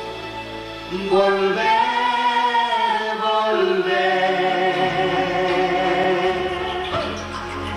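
A man and a woman singing long held notes together, with band accompaniment, over a live concert sound system.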